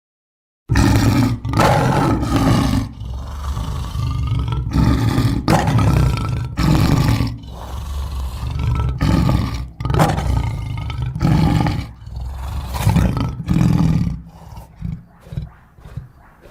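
Ceratosaurus roar sound effects: a run of deep dinosaur roars one after another, starting about a second in and breaking into shorter, choppier calls near the end.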